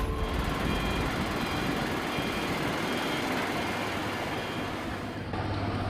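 Steady mechanical rumble of an engine or vehicle, with a few faint high steady whining tones over it.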